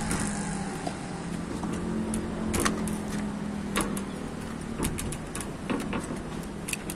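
Scattered light clicks and taps as a tempered glass panel is nudged into line with a suction-cup lifter and shims, over a steady low engine-like hum.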